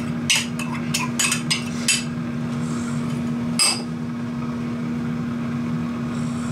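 A metal spoon clinking and scraping against a bowl as tuna is scraped out into a baking pan: several quick clinks in the first two seconds, then one sharper knock about three and a half seconds in, over a steady low hum.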